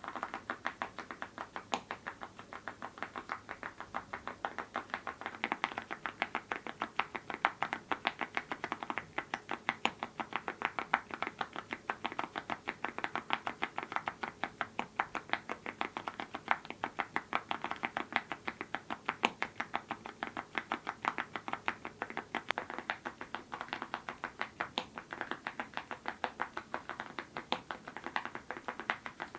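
Fast, continuous typing on a mechanical keyboard fitted with Awekeys full-metal keycaps over linear switches. It is a dense stream of sharp clacks, several keystrokes a second.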